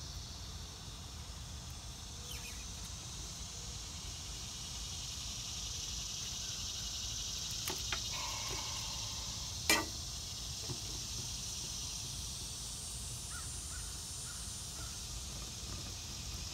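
Steady high drone of insects with a few faint bird calls, and a sharp click about ten seconds in as the spin-on hydraulic filter is handled and worked loose.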